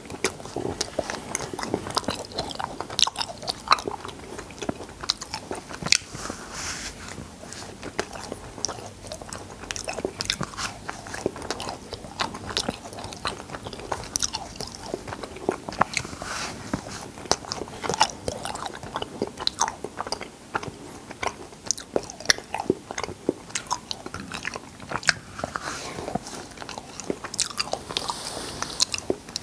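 Close-miked mouth sounds of a man eating cotton candy: many sharp, wet smacks and clicks of lips and tongue as the spun sugar melts in his mouth.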